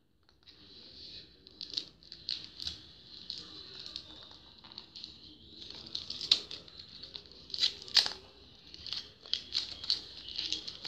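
Packaging of a Sweet Box candy-and-toy box being torn open and crinkled by hand: irregular rustling with many small sharp crackles.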